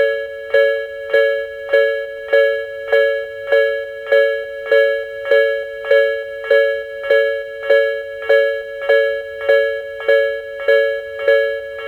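Electronic level-crossing warning bell of the Tobu 'sound B' type in its slow-tempo version, chiming steadily a little under two strikes a second with two close pitches alternating.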